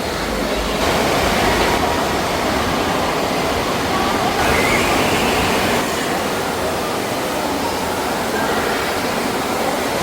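Wave pool churning with machine-made waves, a loud, steady rush of water that swells between about 1 and 6 seconds in.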